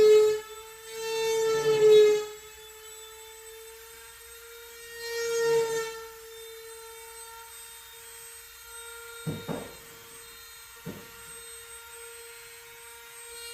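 A steady mechanical whine, like a small motor or fan running, swelling louder three times, with three short knocks about two-thirds of the way through.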